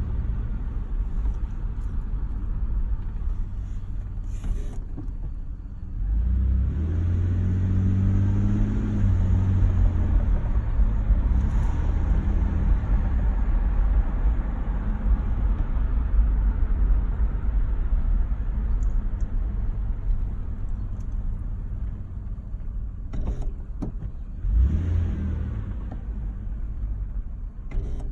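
Car on the move, with a steady low engine and road rumble; about six seconds in the engine note rises for a few seconds as it pulls, and a few short knocks come through.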